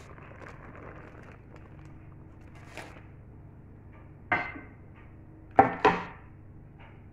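Kitchen handling sounds: a faint rustle of baking paper at first, then three sharp knocks with a short ring, one about four seconds in and two close together near the end, as the loaf cake is lifted and handled by the metal loaf tin.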